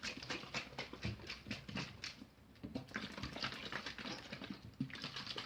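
Rapid, irregular clicking and scraping of PVA glue being squeezed from its bottle into a bowl, with a quieter stretch about two seconds in.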